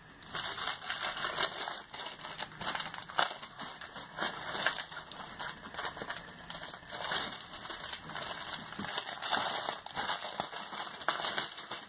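Plastic wrapping crinkling and rustling in irregular crackles as it is handled.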